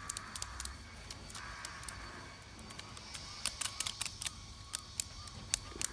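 Wood campfire crackling, with many irregular sharp pops and snaps over a faint hiss.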